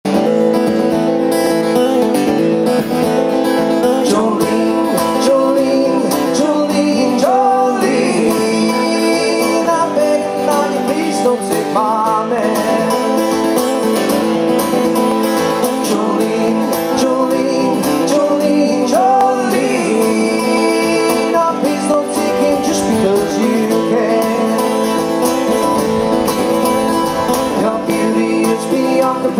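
Two acoustic guitars played together live in a country/folk style, strummed and picked steadily.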